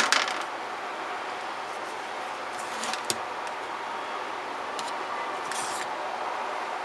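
Steady background hiss of room noise, with a single sharp click about three seconds in and a couple of faint, light clatters near the end.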